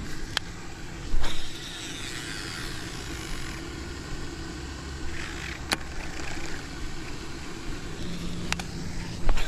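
A cast with a baitcasting rod and reel about a second in, a short loud swish, then a steady outdoor rumble with a few sharp clicks as the lure is worked back; a loud knock near the end.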